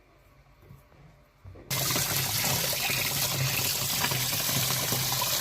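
Water running in a washing machine. It starts suddenly about a second and a half in as a loud, even rush over a steady low hum.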